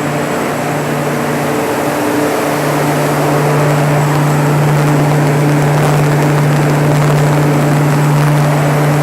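Kohler diesel generator set with a Detroit Diesel 12V-92TA two-stroke turbocharged V12 engine, running steadily with a strong low hum. The hum drops out briefly about two seconds in, then returns.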